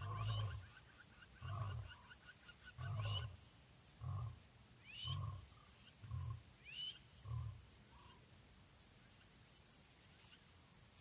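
A big cat's deep grunts, about one a second, growing weaker and stopping after about eight, over steady rhythmic cricket chirping.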